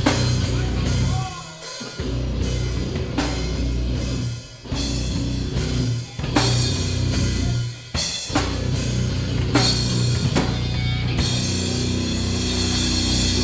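Live rock band playing heavy music, led by a loud drum kit with cymbals. The band cuts out briefly several times and comes back in on a hit, in a stop-start pattern.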